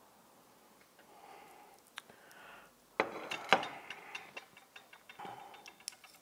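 Sharp metallic clinks, taps and clatter as an old flat iron is lifted off and set down and metal tweezers handle a small hot enamelled piece on a mica sheet. The loudest cluster of clicks comes about three seconds in, with lighter ticks scattered after it.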